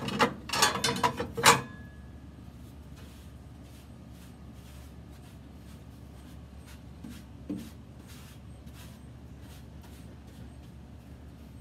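A few loud metallic clanks with a brief ringing in the first second and a half, then a paintbrush sweeping ash and dust across the floor of a pellet grill's cooking barrel in quick, evenly spaced strokes, with one soft knock about halfway through.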